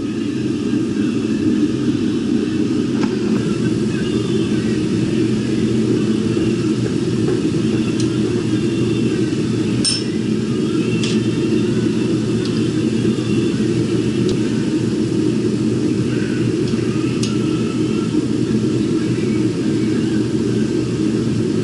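A shop machine running steadily with a low, even drone and a few faint ticks.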